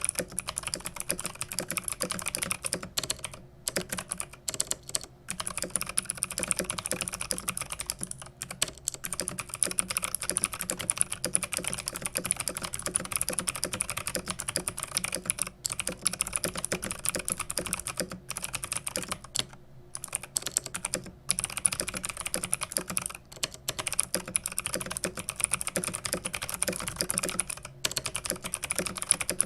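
Fast continuous typing on a Varmilo MA87M keyboard with EC Ivy V2 clicky switches: a dense stream of key clicks, broken by a few brief pauses.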